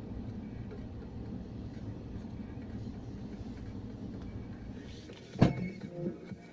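Chevrolet Niva driving, its engine and road noise a steady low rumble heard inside the cabin. About five and a half seconds in there is one sharp loud knock.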